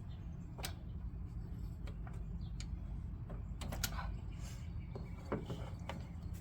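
Scattered light metal clicks and knocks of a ratchet and socket being worked onto the serpentine belt tensioner, a few irregular taps spread over several seconds, over a steady low hum.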